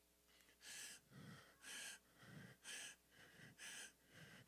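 A man breathing hard close to a handheld microphone: short, hissy breaths in and out, about one a second.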